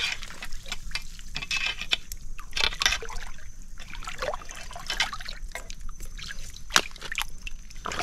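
Shallow tidal water splashing, sloshing and trickling as a hooked rod and hands probe a mud crab's pool, with many small sharp splashes and drips.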